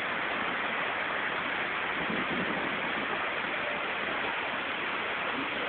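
Waterfall rushing steadily, an even hiss of falling water without a break.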